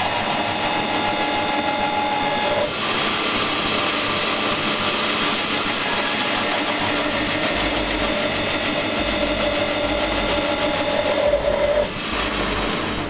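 Lathe power skiving: the skiving cutter and workpiece spindles turning together while the cutter cuts teeth, making a steady machining whine of many held tones. The noise dips briefly about three seconds in and changes near the end.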